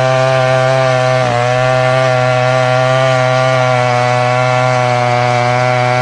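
Chainsaw sound effect running at a steady high speed, with a brief dip in pitch about a second in, comically matching a cat shredding a cardboard box.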